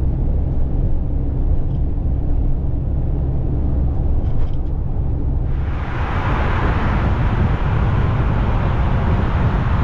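Car driving on the road, heard from the cabin: a steady low engine and road rumble. A bit over halfway through, it changes abruptly to a much louder, steady hiss of tyre and wind noise over the rumble.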